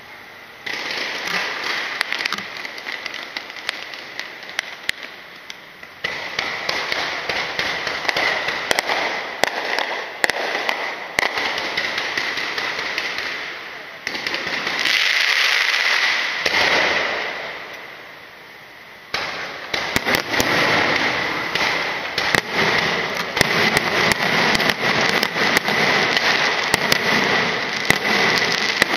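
Fireworks and firecrackers going off in a long, dense crackle of rapid pops and bangs. It starts about a second in, eases off twice and comes back stronger each time.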